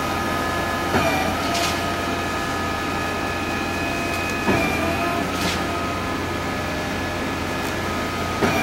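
Truck-mounted concrete pump running steadily with a constant hum and whine, with a knock about every three and a half seconds, three times.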